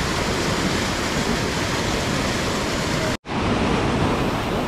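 River rapids rushing nearby, a steady even rush of water. It cuts out for an instant about three seconds in.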